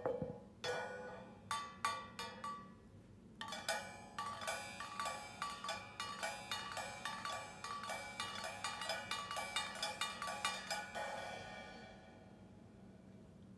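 A cymbal lying flat on the floor with a water bottle standing on it, struck with drumsticks. A few spaced hits come first, then a quick, fairly even run of about three or four short, clanking hits a second. The playing stops near the end and the ring dies away.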